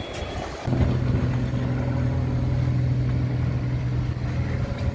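An engine running steadily, a low even hum at one pitch that starts suddenly about two-thirds of a second in, over a low rumble.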